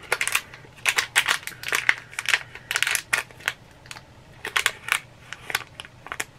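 Mystery pin packaging being handled and torn open, the small black wrapper crinkling: a quick string of sharp crinkles and clicks, busiest at first and thinning out toward the end.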